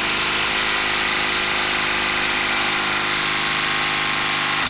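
Milwaukee M12 brushed 12-volt impact driver hammering steadily on a screw stuck in a log, failing to knock it loose. It stops suddenly right at the end.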